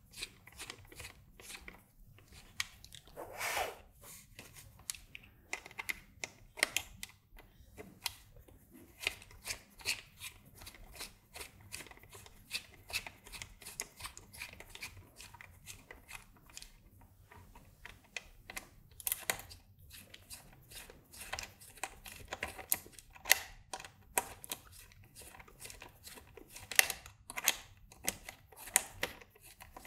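A hex screwdriver loosening socket-head screws and nuts in a stack of acrylic panels and a circuit board: irregular small clicks and scrapes of the metal bit turning in the screw heads, with a longer rasp about three and a half seconds in.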